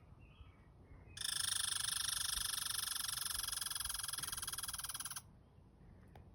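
A squirrel giving a high, rapid buzzing chatter call about four seconds long. It starts about a second in and cuts off suddenly.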